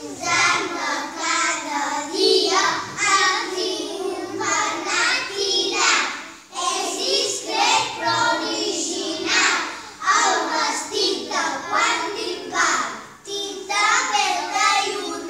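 A group of young children singing a song together, in phrases with short pauses between them.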